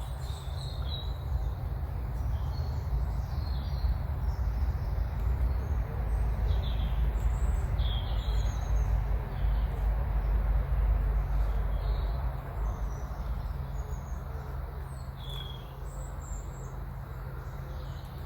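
Small birds chirping and calling over a low, steady rumble that swells in the middle and fades toward the end.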